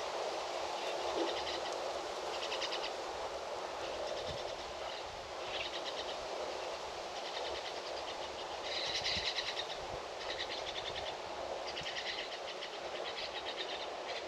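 A bird calling outdoors: short rattling chirps repeated about every second to second and a half, over a steady background hiss.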